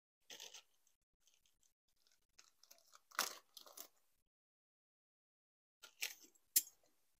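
Plastic parts and wiring being handled: scattered crinkles and clicks in three short bursts, with a sharp click near the end.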